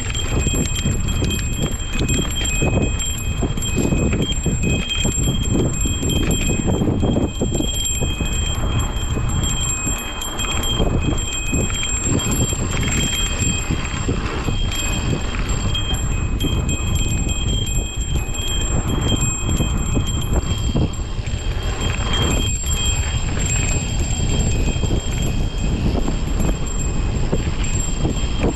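Mountain bike rolling over a dry dirt singletrack: tyre rumble and the bike rattling and knocking over bumps, with heavy wind noise on the handlebar camera's microphone. A steady high-pitched whine runs throughout.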